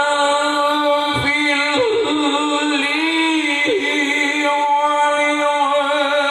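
A male qari's voice reciting the Qur'an in the melodic tilawah style, holding long notes with ornamented turns in pitch.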